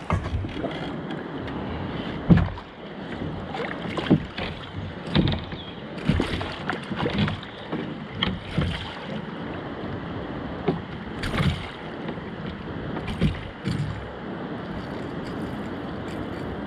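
A small boat or kayak moving through water: irregular splashes and knocks, a sharp one about two seconds in, over a steady hiss of wind and water.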